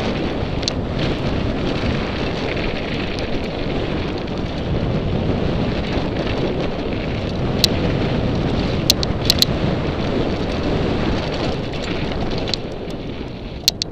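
Mountain bike riding fast down a dirt and gravel trail: tyre rumble and wind on the microphone. A few sharp clicks and rattles from the bike come around the middle and near the end.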